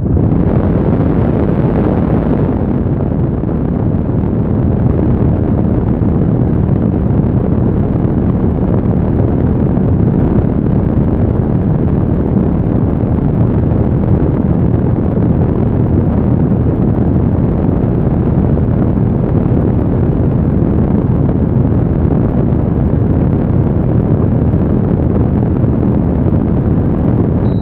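AVIAIR R10 air circulator fan blowing, a steady low rush of air that cuts off abruptly near the end.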